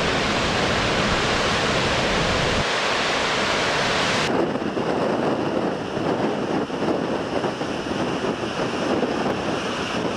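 Storm-force wind blasting the microphone with the rush of heavy surf behind it. About four seconds in the sound changes abruptly to rougher, gusting wind and waves breaking on the flooded shore.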